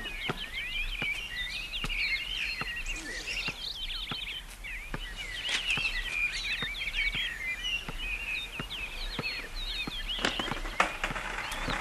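Many small birds chirping at once in a dense, continuous chatter, with scattered sharp clicks or knocks over it.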